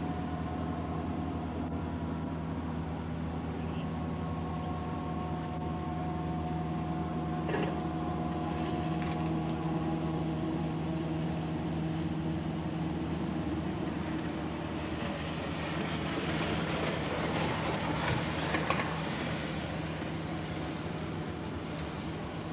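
Steady mechanical hum with several fixed tones underneath. There is a single knock about seven and a half seconds in, and a rushing noise swells and fades in the second half.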